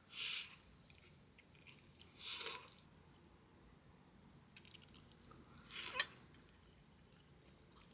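Close-up eating sounds: three short bursts of someone biting and chewing food, a couple of seconds apart.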